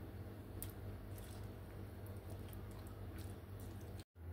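Faint room tone: a steady low hum with a few soft clicks.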